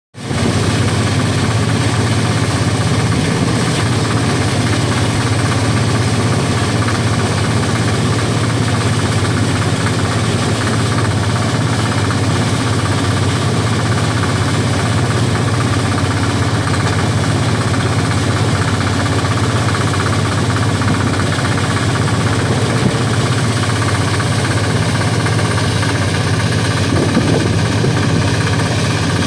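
Motorized rice thresher running steadily, its small engine droning evenly while bundles of rice stalks are fed into the spinning threshing drum.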